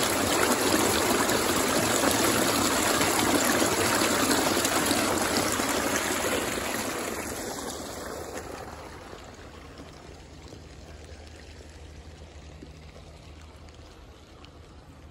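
Rainwater pouring through a metal drain grate, a loud rushing that fades over a few seconds about halfway through, leaving the quieter sound of steady rain.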